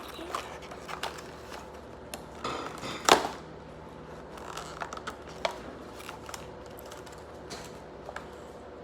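Hands handling and working at a small toy package: scattered light clicks, taps and rustles, with one sharper knock about three seconds in.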